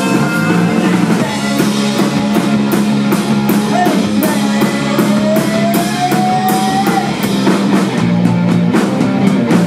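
A live rock band playing loud: a drum kit with a steady run of cymbal and drum hits under bass and guitar. A long held note slides slowly upward through the middle.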